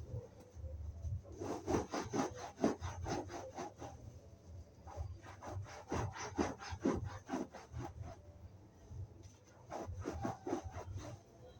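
Sponge scrubbing sofa upholstery back and forth in quick rhythmic rubbing strokes, with a couple of short pauses.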